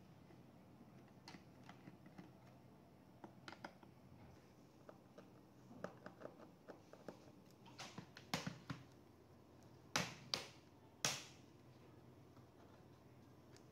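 Light clicks and taps of a laptop being worked on by hand, with four sharper, louder clicks in the second half.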